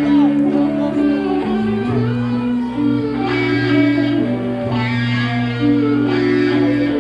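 Music: a track of held bass notes and chords that change every second or two.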